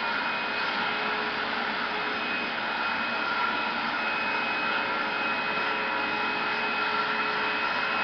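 Vacuum cleaner running steadily through its hose attachment, a hiss with a steady high motor whine, as the nozzle is worked over a dog's fur.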